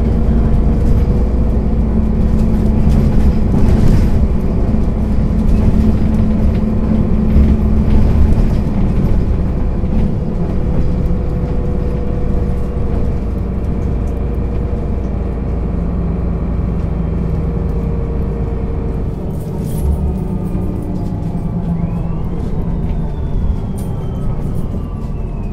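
Solaris Urbino 12 III city bus's diesel engine and drivetrain running under way. A steady hum for the first ten seconds, then the pitch falls away through the second half as the bus slows.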